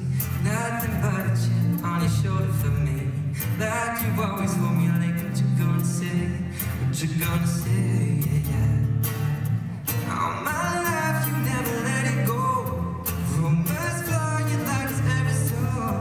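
Male singer performing a song into a microphone while strumming an acoustic guitar, live on stage.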